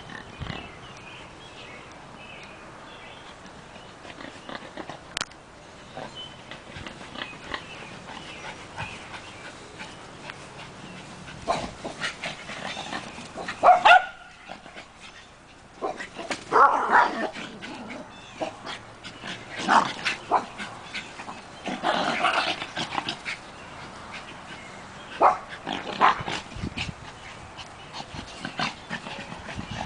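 Small Maltese dogs barking in short, scattered bursts that start about a third of the way in and come thicker and louder through the middle, while they run along a fence.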